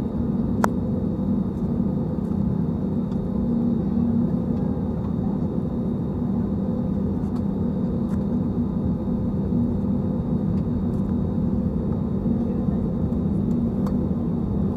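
Steady engine hum and cabin noise inside a jet airliner on the ground, an even low drone with no change in pitch. A single short click about half a second in.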